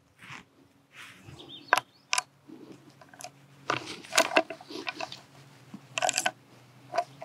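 Metallic clicks and clacks of a .577 Snider carbine's breech being worked as a cartridge is loaded by hand: a handful of sharp clicks at irregular times, some in small clusters.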